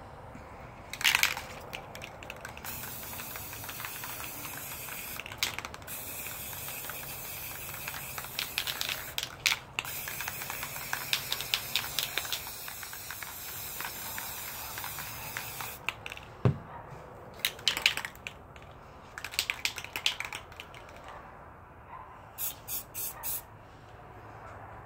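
Aerosol spray paint can spraying. A short spurt comes first, then one long continuous hiss, then several short spurts, and four quick short bursts near the end.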